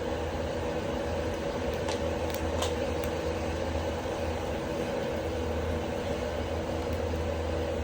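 Ceiling exhaust fan drawing wood smoke, running with a loud steady whir and hum that drowns out the wood fire beneath it. A few faint crackles from the burning firewood come through about two to three seconds in.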